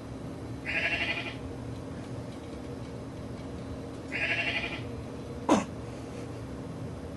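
A recorded bleating sound effect played twice from computer speakers, each bleat wavering and lasting under a second, the second about three seconds after the first. A short, sharp sound falling in pitch comes about five and a half seconds in.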